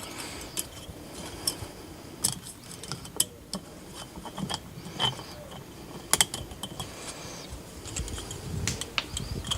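Light metallic clicks and ticks, irregular and scattered, as a Napier-cut second compression ring is spread and worked onto a piston. The sharpest clicks come about six seconds in.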